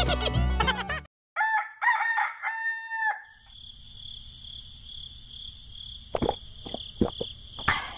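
A rooster crowing once, a long cock-a-doodle-doo of about two seconds, right after the tail end of background music. Afterwards a steady high hiss with a few faint clicks.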